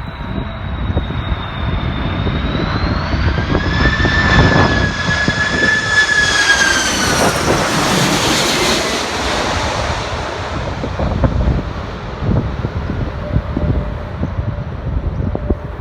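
Jet airliner passing close by: its engine whine holds several high tones that drop in pitch as it goes past, swelling to a loud rush about eight seconds in and then fading. Strong wind buffets the microphone throughout.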